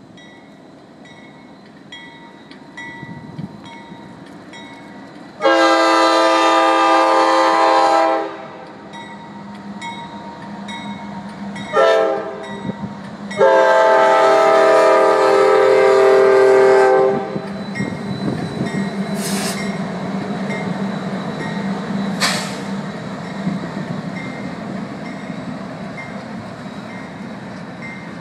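A Norfolk Southern GE Dash 9 diesel locomotive sounds its multi-chime air horn: one long blast, one short blast, then another long blast. After the horn, the steady low rumble of three diesel locomotives and a double-stack container train rolling past takes over.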